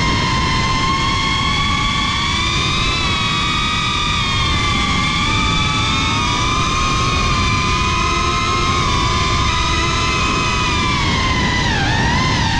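Motors of a 6S FPV quadcopter whining, several close tones drifting slowly in pitch with a brief dip near the end, over a rush of propeller wash.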